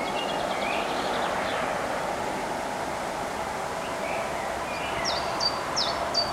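Small birds chirping and whistling over a steady rushing background noise. A quick series of sharp, high whistled notes comes near the end.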